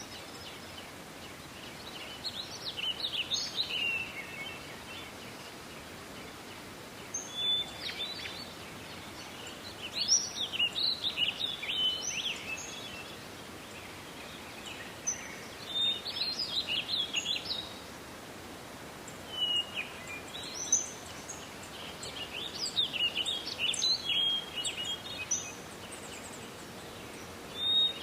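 A songbird singing short, high, jumbled song phrases of one to three seconds each, repeated every few seconds, over a steady hiss of forest ambience.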